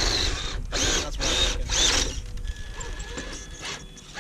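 Traxxas TRX-4 RC crawler's electric motor and geared drivetrain whirring in four short throttle bursts over about two seconds, then going quieter.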